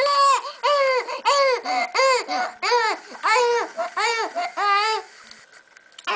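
Infant crying in short, rhythmic wails, about two a second, breaking off about five seconds in. She is fussing at being held and having the patch pressed onto her belly, not crying from pain.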